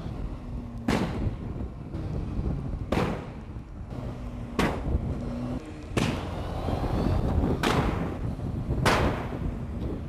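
Motorcycle exhaust backfiring in loud, sharp bangs, six of them about one and a half to two seconds apart, over the running engine. The bangs come from flicking the kill switch off and on while riding, so unburnt fuel ignites in the exhaust.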